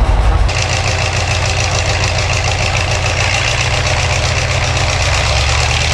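Engine of a sand-dredging boat running steadily: a low, even drone. About half a second in, a steady high whine joins it.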